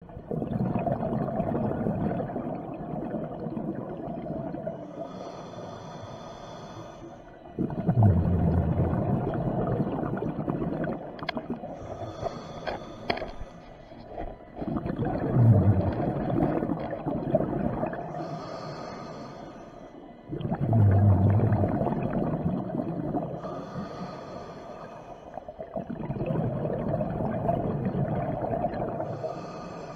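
Scuba diver breathing through an open-circuit regulator underwater: a short hissing inhale, then a loud burst of exhaled bubbles that gurgles and fades. The cycle repeats about five times, roughly every six to seven seconds.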